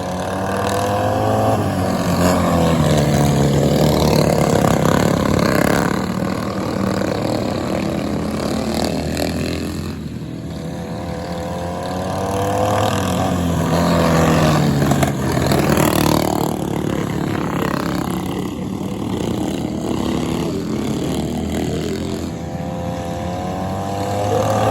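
Racing lawn mower engines running hard, about three times rising in loudness and then dropping in pitch as they go by.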